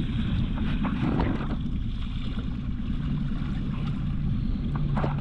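Small boat's outboard motor running steadily at trolling speed, a low rumble with wind buffeting the microphone.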